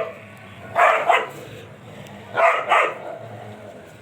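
Dog barking in two quick pairs of barks, about a second in and again about halfway through.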